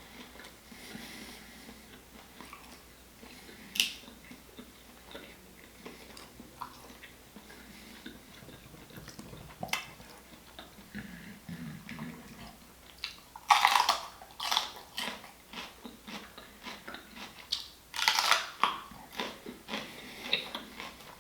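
Close-miked eating of seafood: wet chewing and lip smacks with scattered clicks, and two louder crackling bursts in the second half.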